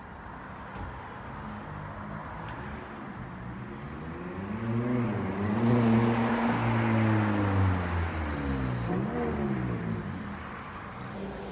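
A McLaren sports car's twin-turbo V8 accelerating past through the gears. The engine note climbs, drops at a gear change about five seconds in, is loudest just after, and shifts again near nine seconds as it fades.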